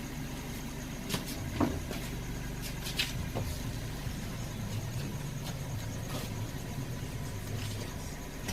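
Car engine idling steadily, with a few short clicks and knocks about one to three seconds in.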